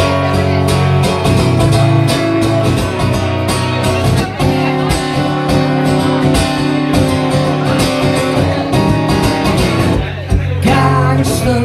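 Live band playing a song's instrumental intro, guitar to the fore over a steady beat, with a brief drop about ten seconds in.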